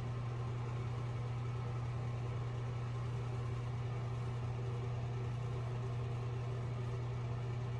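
Steady low hum, unchanging, with faint higher tones above it.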